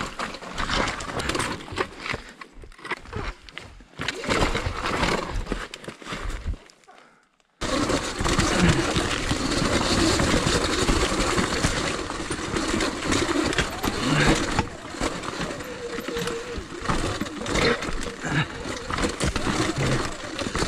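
Riding noise of a Sur-Ron Light Bee electric dirt bike on a rocky descent: tyres and chassis rattling and crunching over loose rock, picked up by an on-board camera. About seven seconds in the sound cuts out briefly, then carries on steadier and denser.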